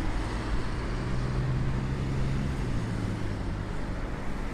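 Street traffic noise with a vehicle's low steady hum that comes in about a second in and fades near the end.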